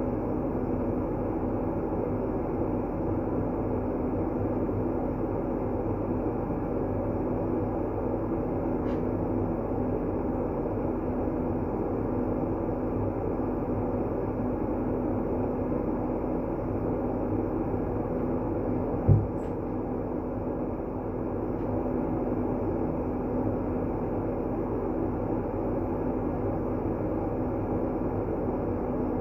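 Steady, deep noise played as a calming white-noise track for sleep, with a faint constant hum under it. One short low thump comes about two-thirds of the way through.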